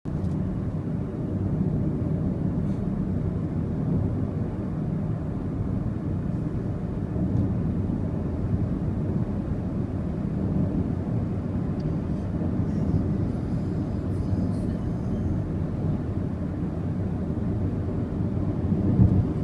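Steady low road-and-engine rumble heard inside a car cabin at highway speed, with a brief thump near the end.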